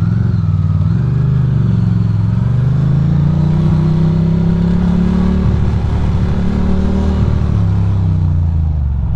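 Ducati Monster V-twin engine running under the rider, its revs climbing through the first few seconds, holding, then easing off near the end.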